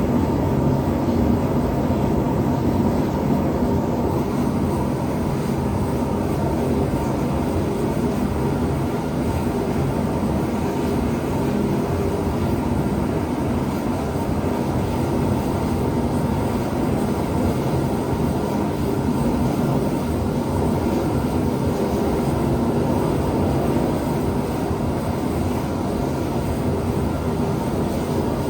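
Gas forge burners running steadily, a constant unbroken noise, while a knife blade soaks at heat in the forge before hardening.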